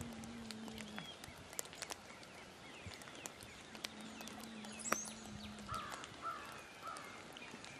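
Quiet outdoor ambience: faint bird calls, with three short chirps near the end, over scattered soft ticks of light rain and a faint low hum that comes and goes.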